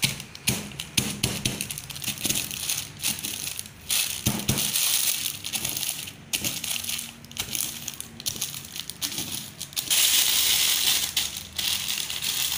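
Oreo cookies crushed into crumbs inside a plastic piping bag under a rolling pin on a steel worktop: a run of irregular crunching crackles mixed with plastic crinkling. Near the end comes a louder stretch of plastic rustling as the bag is handled.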